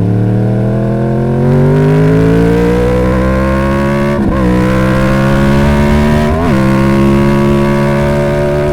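A 2011 Yamaha R1's crossplane inline-four, on its stock exhaust, pulling under acceleration with its note rising steadily. The pitch dips briefly about four seconds in and again about six and a half seconds in, as it shifts up a gear.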